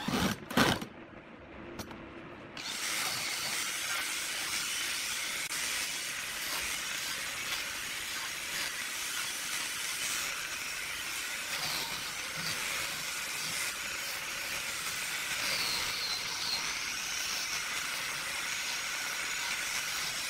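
A few sharp knocks, then from about two and a half seconds in the steady hiss of a handheld power tool sanding along a wooden edge.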